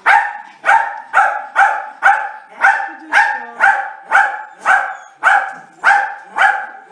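A dog barking over and over in an even rhythm, about two barks a second.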